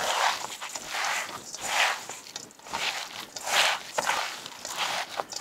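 Raw ground beef, panko crumbs and egg being kneaded by hand in a stainless steel bowl: a rhythmic wet squelching, a squish every half second to second as the fingers squeeze through the mix.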